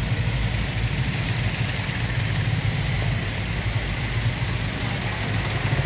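Motor vehicle engine running steadily in slow traffic, a continuous low hum with road noise over it.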